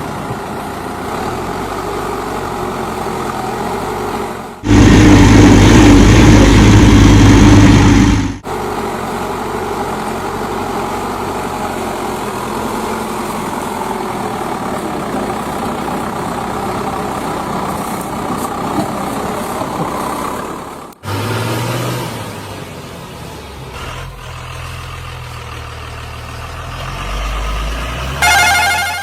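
Heavy diesel engines of a backhoe loader and tipper trucks running steadily. About five seconds in, a much louder engine burst lasts nearly four seconds. A brief loud pitched tone sounds just before the end.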